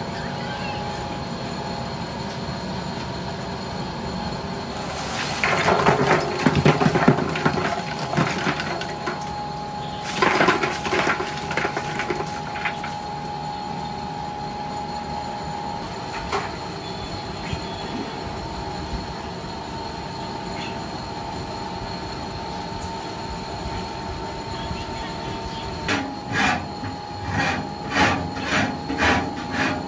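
Metal clattering and scraping over a steady mechanical hum: two rattling bursts a few seconds apart, then a quick run of separate clanks near the end.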